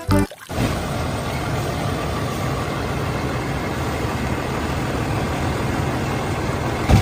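A heavy engine idling steadily, a low rumble with an even hiss over it, starting about half a second in.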